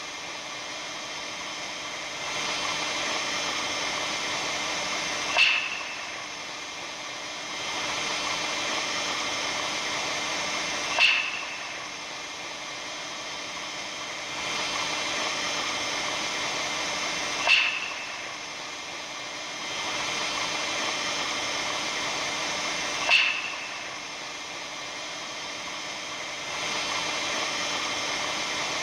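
Steady hiss with faint high ringing tones, broken by a short, sharp crack-like peak about every six seconds, four times. The recording is billed as the sound of the aurora borealis.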